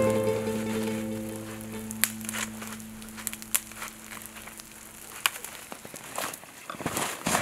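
Dry dead branches and twigs snapping and crackling as they are broken and pulled through brush, with sharp cracks about two and three and a half seconds in and a denser run of them near the end. A last music chord fades out over the first few seconds.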